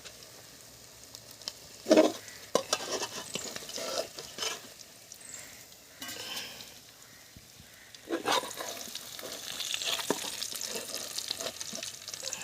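Fish frying in hot oil, sizzling, while a spatula clinks and scrapes against the pan as the pieces are lifted out. A sharp knock about two seconds in is the loudest sound, and the sizzle grows louder from about eight seconds in.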